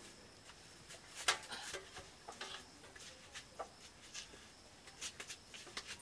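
A metal ladle scraping and clinking against a steel cooking pot and plates as curry is served: scattered short clinks and scrapes, the sharpest one about a second in.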